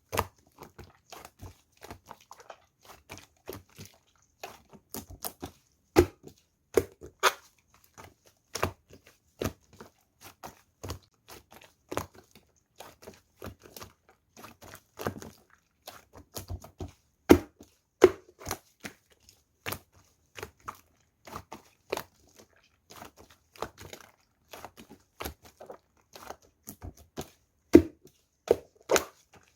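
Clear blue slime being pressed and stretched over a coiled mound of slime, making irregular sticky clicks and pops, roughly one or two a second, with a few louder pops.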